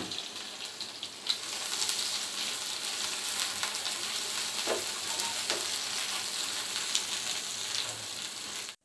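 Freshly added sliced onions sizzling in hot oil in a nonstick frying pan, stirred with a silicone spatula. The sizzle cuts off suddenly near the end.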